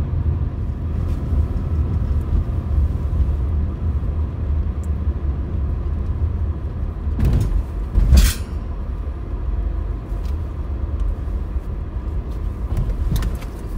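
Steady low road and engine rumble inside the cabin of a moving car. About seven and eight seconds in, two brief rushes of noise rise over it, the second the loudest.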